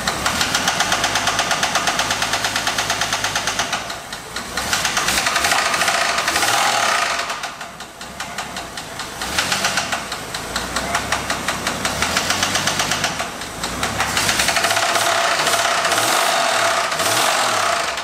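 AMC Eagle engine running with a rapid, loud knocking, its speed rising and falling several times. The knock was first called huge rod knock, but the owner later doubts it is bottom-end noise because it seems too rapid.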